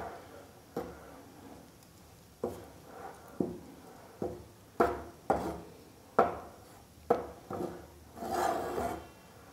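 A perforated metal spatula scrapes across a pan as wheat flour is stirred while it dry-roasts in a little ghee. There are about ten short scrapes at uneven intervals, with a longer scrape near the end.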